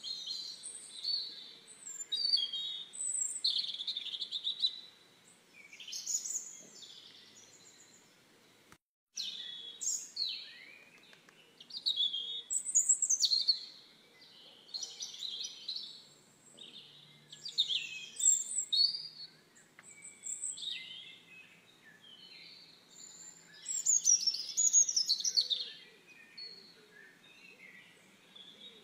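High-pitched bird chirping in short phrases of a second or two, repeating every few seconds, with a brief gap about nine seconds in.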